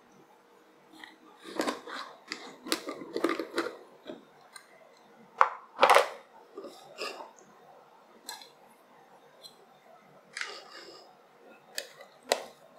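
Irregular clicks, taps and knocks of a plastic measuring cup and a kimchi jar being handled on a table, loudest in a sharp double knock about halfway. Near the end, wooden chopsticks click against the jar as kimchi is scooped out.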